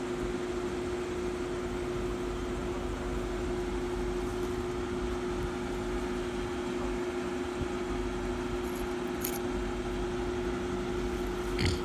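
Steady hum of an idling car engine with a constant drone and no change in speed. A faint click comes about nine seconds in and a sharper tick near the end.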